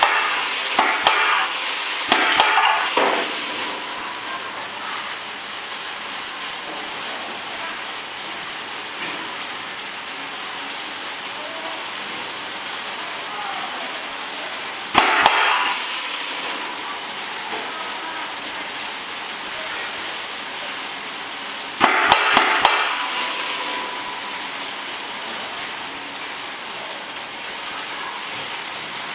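Granules pouring steadily through a free-fall metal separator make a continuous hiss. Several times, short clusters of sharp clicks followed by a brief rush of air break in: the separator's pneumatic reject flap snapping across to divert metal-contaminated material.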